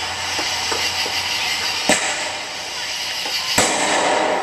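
Fireworks going off: two sharp bangs, one about two seconds in and a louder one about a second and a half later, over a steady hiss with a few small pops.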